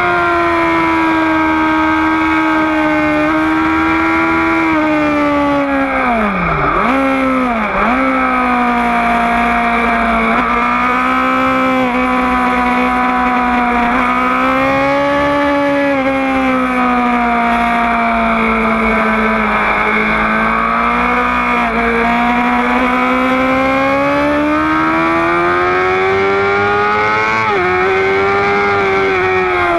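High-revving sport motorcycle engine heard from its own onboard camera, running hard at a high pitch that climbs and sags with the throttle. About six and a half seconds in the pitch drops sharply twice in quick succession as it shifts down, and it dips once more near the end.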